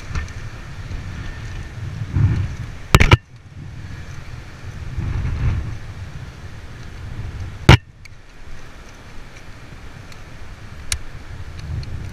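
Wind buffeting the microphone in uneven gusts, broken by two sharp knocks, the loudest sounds, about three and almost eight seconds in, and a lighter click near the end.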